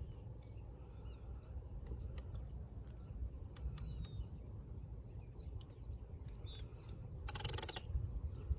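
Steady low wind rumble on the microphone aboard a small sailboat, with a few faint clicks and one brief, loud rattling hiss of about half a second near the end.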